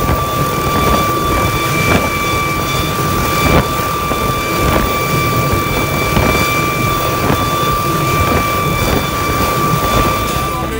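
Small helicopter running on the ground: a steady high turbine whine over the rush of rotor wash and gusting wind on the microphone.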